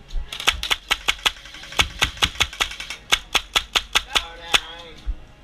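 Airsoft guns firing in a skirmish: a string of sharp, irregular cracks, single shots and quick pairs, going on throughout.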